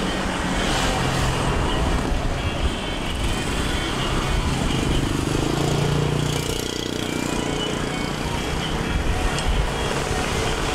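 Steady street traffic noise: a continuous rumble of passing motor vehicles, with an engine hum swelling about five to seven seconds in.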